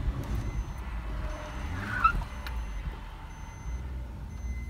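Car engine and body rumbling inside the cabin as the car is driven off a road divider over a stone, with one sharp knock about two seconds in as it goes over.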